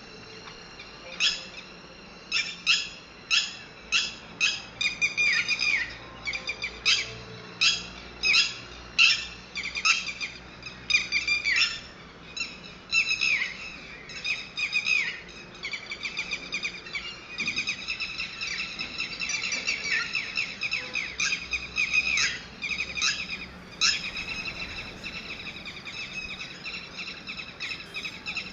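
Red-wattled lapwing calling: a long series of sharp, high, piercing calls, spaced about a second apart at first, then coming in quicker, denser runs in the second half.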